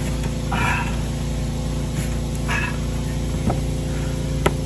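Steady engine hum of a Champion 4000 dual-fuel generator running on propane, with two brief scraping rustles and a couple of sharp knocks near the end from a boxed rooftop air conditioner being pushed up a ladder.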